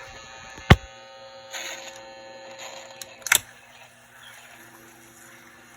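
Vintage Dictaphone tape player being switched into play: a sharp mechanical click about a second in, a short rustle, then two more clicks just after three seconds, over a mains hum that weakens after the last click into a faint steady hiss.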